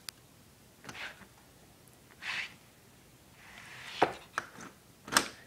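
A few scattered scrapes and sharp knocks about a second apart, the sharpest two near the end.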